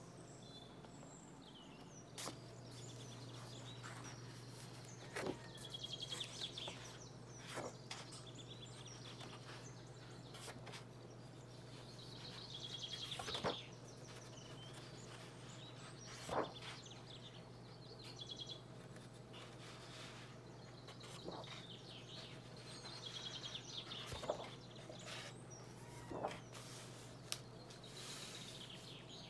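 Pages of a large, heavy art book being turned by hand one at a time. Each turn is a soft paper swish ending in a light flop, coming every few seconds, over a steady low hum.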